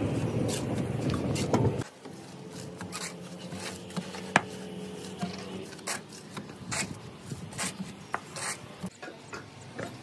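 Hand trowels scraping and slapping cement mortar onto a brick wall in plastering: a run of short scrapes and sharp taps. A loud low rumble covers the first two seconds and cuts off suddenly.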